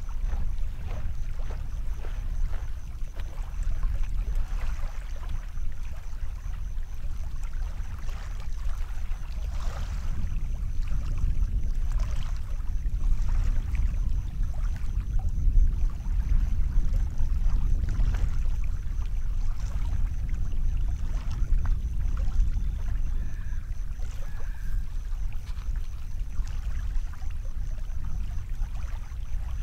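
Wind rumbling on the microphone, an unsteady low buffeting, with faint lapping of small waves at the shore and a thin, steady high buzz.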